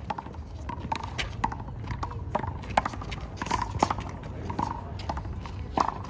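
Handball rally: a string of sharp slaps and knocks, irregularly spaced, as a rubber handball is struck by hand and bounces off the wall and court, over a steady low rumble.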